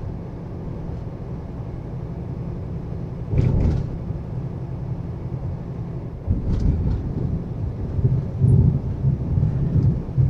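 Steady low drone of a heavily loaded semi truck's diesel engine and road noise, heard inside the cab while driving. A short louder noise comes about three and a half seconds in, and the rumble grows louder and rougher over the second half.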